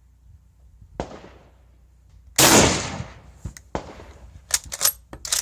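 A lighter crack about a second in, then an M48A Mauser bolt-action rifle firing an 8mm Mauser round, loud with a short echo. The 1953 Turkish surplus round goes off with no misfire, the firing pin now driven by a stiffer Wolff 26-lb spring. Several sharp metallic clicks and clinks follow, like the bolt being worked and the empty brass ejected.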